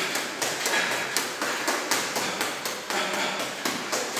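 Boxing gloves landing on a teardrop punching bag in a quick, steady flurry of punches, about four hits a second.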